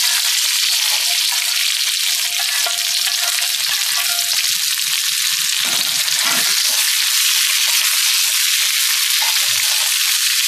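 Chopped red chillies, bird's eye chillies, shallots, garlic and tomato frying in a little hot oil in a steel wok, charring rather than grilling them: a loud, steady sizzle, with the spatula stirring them near the end.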